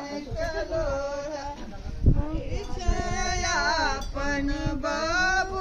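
Women singing a song together, with long held, wavering notes.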